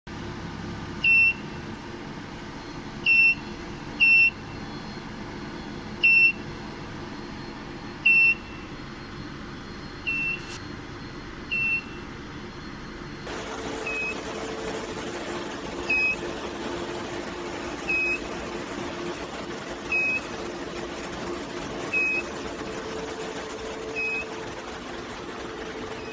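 Electronic beeper sounding short, high-pitched single-tone beeps over a steady machine hum. The beeps come at uneven intervals at first, then about every two seconds in the second half.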